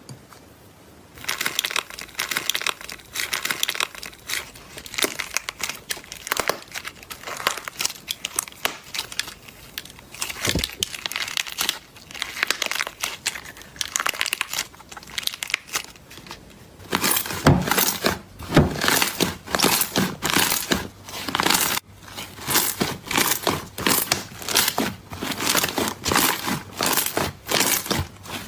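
Slime being squashed and pressed by hand, giving dense runs of quick clicks and pops from air pockets and stretched slime. Past the middle it briefly stops, then comes back louder with deeper pops.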